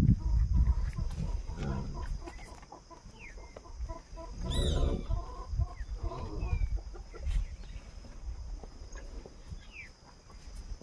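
Chickens clucking in short runs of calls, the loudest about four and a half seconds in, with a few brief high bird chirps between them.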